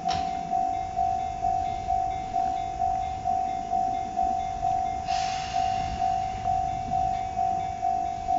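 Japanese level-crossing alarm ringing its electronic 'kan-kan' tone, a little over two strikes a second, as the crossing is closed for a departing Chichibu Railway 7500 series electric train (rebuilt Tokyu 8090 series). The train's low running rumble sits beneath, and a short burst of hiss comes about five seconds in.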